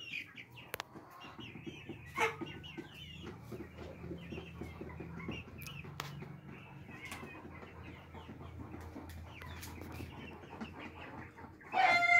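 Flock of young chickens, mostly black Kadaknath, clucking and cheeping, with many short high calls overlapping. A sharp tap comes about two seconds in, and a louder call near the end.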